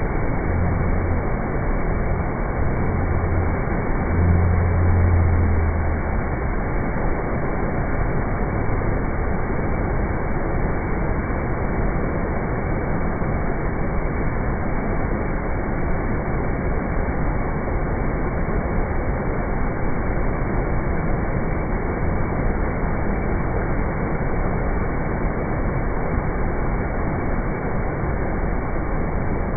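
Heavy flood water pouring through the open gates of a river barrage: a steady, dense rushing noise. A few low rumbles come in the first six seconds.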